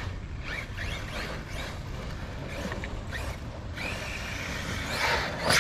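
Electric RC car motor whining up in short rising bursts as it is throttled, then holding a steadier high whine from about four seconds in. A sharp knock near the end is the loudest sound.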